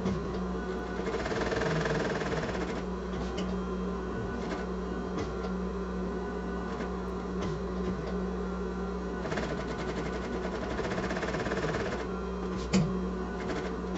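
Sewing machine stitching in two runs, about a second in and again near the end, over a steady hum, with a sharp click near the end. It is sewing a long tacking stitch along the edge to hold a lining onto a bag panel.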